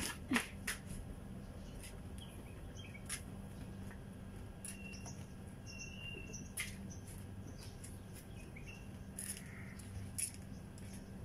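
Hand cloth wiping a car's side mirror and window, with light scattered taps and rubbing and a few brief high chirps, over a steady low hum.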